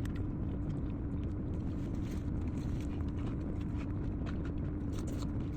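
A person chewing food, with a few faint clicks, over a steady low background hum.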